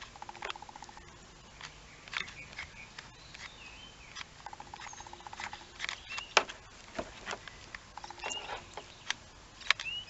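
Scattered sharp clicks and light knocks from hands working a hot glue gun and a sneaker, with three short bursts of fast buzzing pulses and a few brief high chirps in between.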